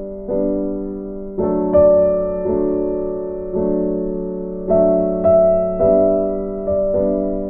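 Background music: slow, soft piano chords, a new chord struck about every second and left to fade.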